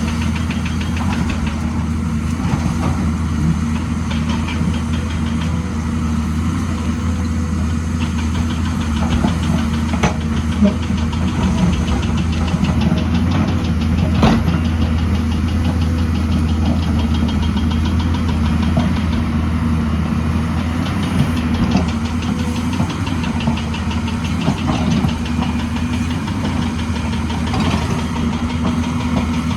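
Excavator's diesel engine running steadily, with a few short knocks or clanks, the sharpest about 14 seconds in.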